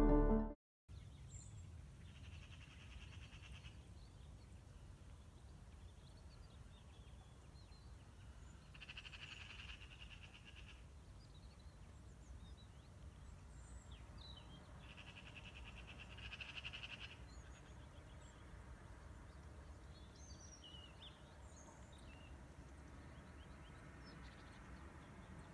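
Faint countryside ambience: scattered bird chirps and a high buzzing trill that comes three times, each lasting a second or two, over a low steady rumble.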